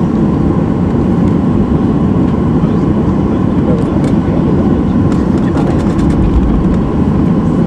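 Boeing 737-800's CFM56-7B turbofan engines running during taxi, heard inside the cabin as a loud, steady rumble with a faint steady whine above it.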